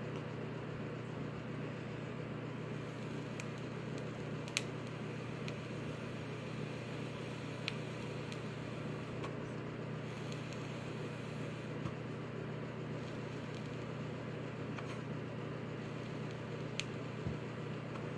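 Steady low hum over an even hiss, with a few faint, short clicks scattered through it.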